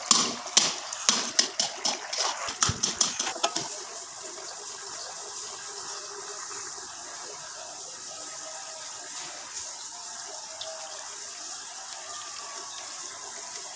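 Metal spatula scraping and knocking against a karahi as it stirs semolina-and-jaggery halwa frying in ghee, a quick run of strokes that stops about three and a half seconds in. After that comes a steady sizzling hiss as the halwa fries on in the ghee it has released.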